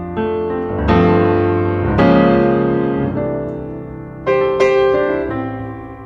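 Background piano music: chords struck every second or so, each left to ring and fade.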